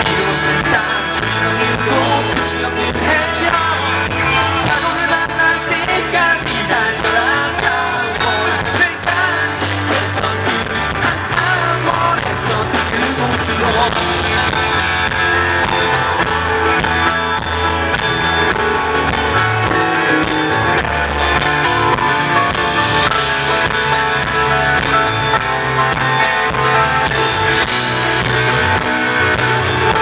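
Live pop-rock band playing an upbeat song: electric bass, guitar and a sung vocal over a full band mix, continuous throughout.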